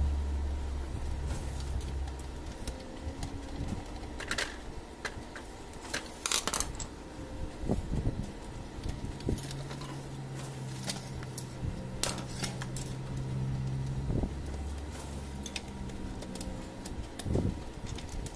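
Scattered clicks, knocks and rattles of metal and plastic as an HP LaserJet fuser assembly is handled and pried apart with a screwdriver. A steady low hum runs underneath; its pitch rises about nine seconds in and drops back about fourteen seconds in.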